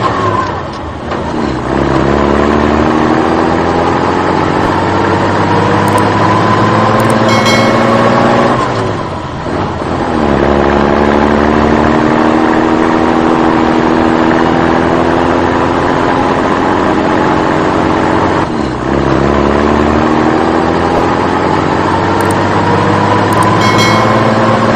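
A vehicle engine accelerating: its pitch climbs steadily for about eight seconds, drops away, and climbs again, three times over. There is a brief high ring near the middle and again near the end.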